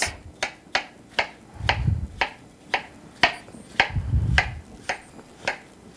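Kitchen knife chopping watermelon on a cutting board: a steady run of sharp taps, about three a second. Two dull low thumps come about two and four seconds in.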